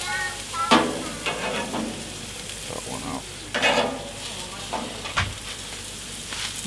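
Meat sizzling on a hot gas grill's grate, a steady hiss, with clacks of metal tongs as pieces are turned and lifted off, the loudest knocks under a second in and near the middle.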